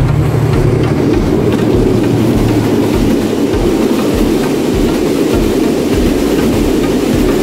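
Two passenger trains passing each other at speed: the oncoming SE2's diesel locomotive and then its coaches rushing past close alongside, a loud steady rumble with wheel clatter. A low engine drone fades about two seconds in as the locomotive goes by.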